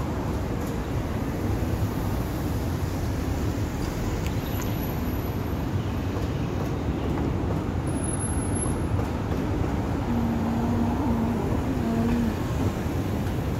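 Steady city street traffic noise: vehicles running and passing along the road. A faint low engine tone stands out briefly about ten seconds in.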